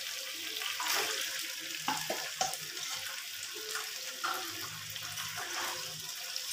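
Sauce sizzling in a frying pan as fried chicken pieces are tipped in and stirred with a spatula, with a few sharp knocks about two seconds in.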